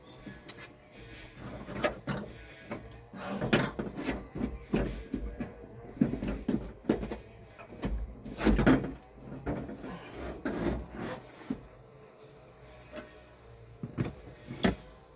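Irregular knocking, clicking and rubbing of tools and parts being handled inside a car door during power-window repair work, busiest in the middle, with the loudest clunk a little past halfway.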